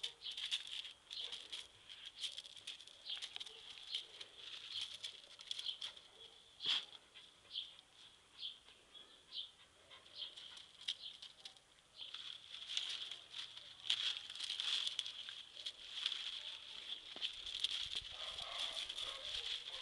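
Miniature schnauzer puppy rummaging in a potted palm, rustling the fronds and scraping on gravel, with repeated high-pitched squeaks that come in short bursts at first and almost without pause in the second half. A sharp snap stands out about a third of the way in.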